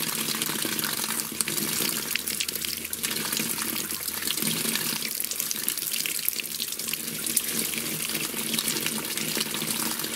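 Water pouring steadily from an outdoor tap, splashing onto a drain and over a smartphone held in the stream.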